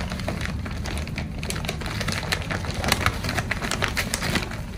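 Stiff, crisp sego gele headtie fabric crackling and rustling as hands gather and press it into pleats: a continuous run of quick, sharp crinkles.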